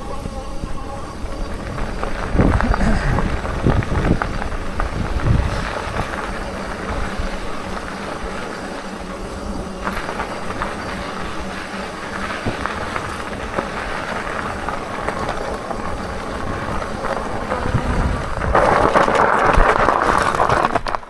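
Hitway BK10S folding fat-tyre e-bike ridden over a rocky trail: a steady rush of tyre and trail noise, with a run of heavy knocks about two to five seconds in as it bumps over stones, and a louder rush near the end.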